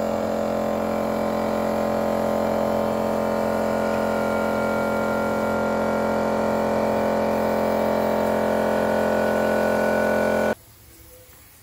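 Air compressor running with a steady hum while a gravity-feed spray gun sprays primer paint. The sound stops abruptly near the end.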